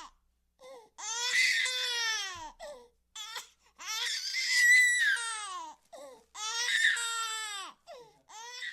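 A baby crying hard and out of breath: three long wails, each rising and then falling in pitch, broken by short gasping sobs. A last short sob comes near the end. The middle wail is the loudest.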